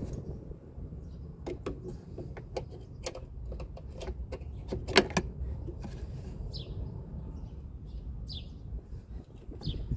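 Scattered light clicks and clinks of tools and parts being handled during hand work, the sharpest about halfway through. In the second half a bird gives three short chirps that slide downward in pitch.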